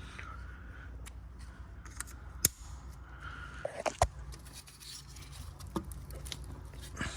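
Scattered sharp clicks and light scrapes of a small screwdriver working plastic ignition coil connectors off an engine, the loudest two about two and four seconds in, over a faint steady low hum.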